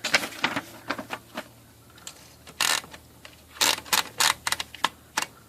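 Olympia SM-3 manual typewriter being typed on: irregular sharp keystrokes as the typebars strike, in short runs with brief pauses between them.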